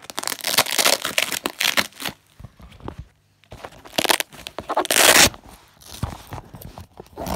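A fabric LiPo safe battery bag being opened and handled: two loud bursts of rustling and crinkling, the first in the opening two seconds and the second about four to five seconds in, with smaller scrapes between.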